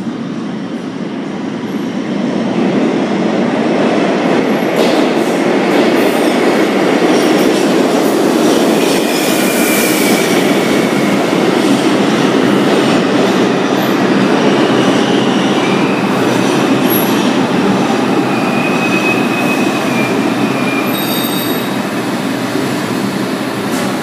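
R142 subway train pulling into the station and braking to a stop. Its running noise builds over the first few seconds as it enters, and thin high wheel squeals come and go as it slows.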